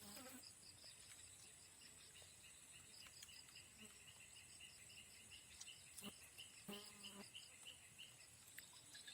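Faint insects chirping in steady repeated trills, about four chirps a second, over a continuous high-pitched whine. There is a sharp click about six seconds in and a short low-pitched sound about seven seconds in.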